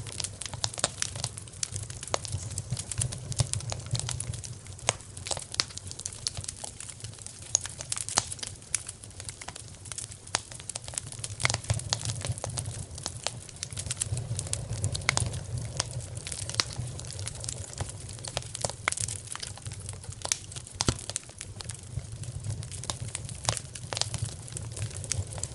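Wood fire in a fireplace crackling, with many irregular sharp pops and snaps over a steady low rumble of the burning.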